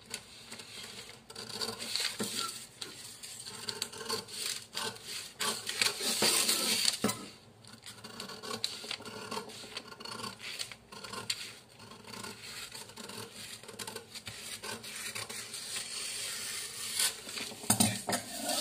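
Steel scissors cutting through brown kraft pattern paper along a curve, a run of irregular snips with the paper sheet rustling and scraping as it is turned. The cutting is loudest for a stretch about six to seven seconds in.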